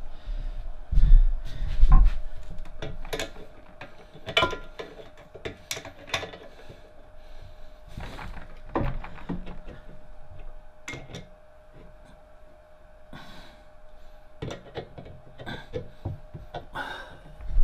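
Metal knocks and clinks as a drill press table is handled and its column clamp tightened with a spanner, with two heavy low thumps about one and two seconds in. A faint steady hum runs underneath.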